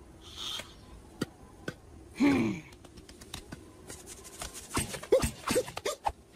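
Cartoon sound effects: scattered light clicks and taps, a falling, groan-like cartoon voice sound about two seconds in, and a quick run of short yelps and grunts near the end.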